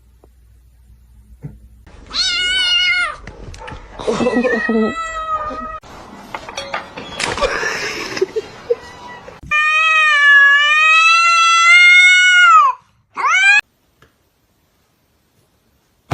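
A cat meowing and yowling several times: short calls about two and four seconds in, then one long drawn-out yowl of about three seconds that drops in pitch at its end, followed by a brief rising call.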